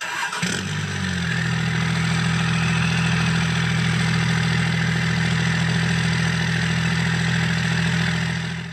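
Engine starting and settling within about a second into a steady idle, then cut off suddenly near the end.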